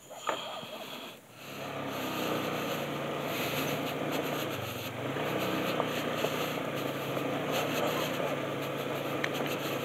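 A small vehicle engine comes up about a second and a half in and keeps running steadily, its pitch dipping and rising again once midway.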